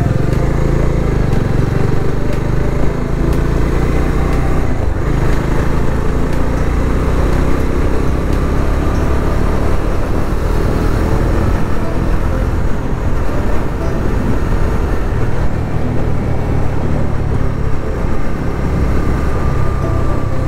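Bajaj Dominar single-cylinder motorcycle engine running as the bike picks up speed and then cruises, heard from the rider's seat, with road and wind noise.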